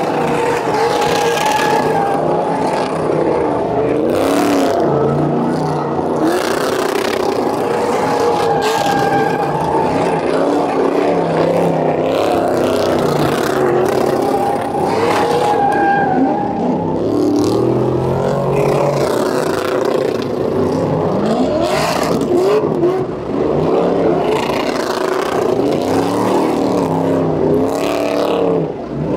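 Several pickup trucks doing burnouts at once: engines revving hard and held high while the rear tyres spin on the pavement. This is a continuous, loud mix of overlapping engine notes that rise and fall, with tyre noise underneath.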